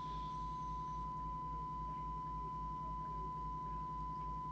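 Steady 1 kHz test tone from the Lowe TX40 CB radio's loudspeaker as it receives the signal generator's tone-modulated test signal during receiver alignment, over a low hum that pulses evenly.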